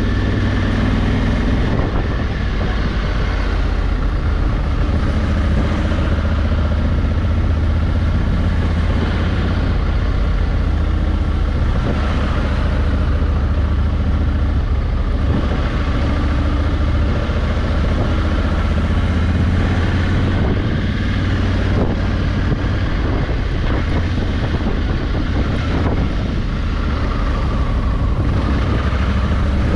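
Honda Africa Twin's 1084 cc parallel-twin engine running steadily as the motorcycle rides along, with a low engine note that shifts slightly a couple of times.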